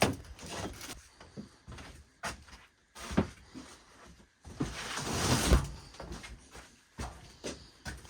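A few knocks and clunks, then a long scraping slide about halfway through, typical of a shed door being slid open.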